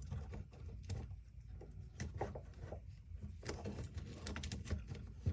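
Scattered light clicks and taps of small parts being handled and fitted back into a cordless impact driver during reassembly.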